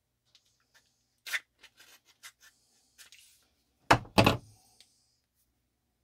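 Utility knife slitting the sealing label on a small clear plastic connector box: scattered light scratches and clicks, then two sharp knocks of the hard plastic box being handled about four seconds in.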